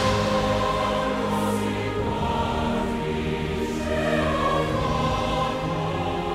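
Orchestral music: a string section bowing long held chords, the harmony shifting about two and four seconds in.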